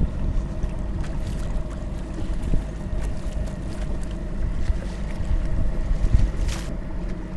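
A small boat's engine running steadily under way, a constant low hum with wind and water noise over it.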